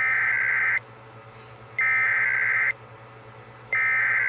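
Emergency Alert System SAME header data tones: three identical bursts of warbling high-pitched data, each about a second long, with about a second between them. These bursts open an EAS alert as it is relayed down the chain.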